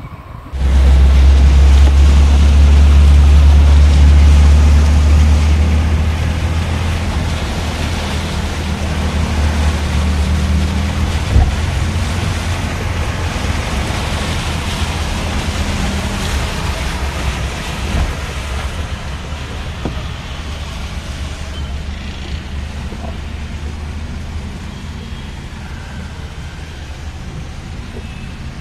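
A car driving through floodwater, heard from inside the cabin: a deep steady rumble under a rushing wash of water, loudest for the first few seconds and slowly easing, with a couple of light knocks.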